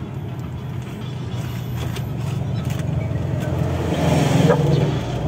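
Engine and road noise of a Hyundai H-1 campervan, heard inside the cabin while driving, a steady low hum that grows louder about four seconds in.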